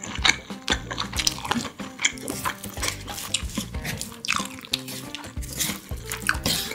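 A wooden spoon stirring and mashing rice with stir-fried kimchi and side dishes inside a metal lunch box: repeated wet, sticky mixing sounds and quick scrapes and knocks of the spoon against the metal.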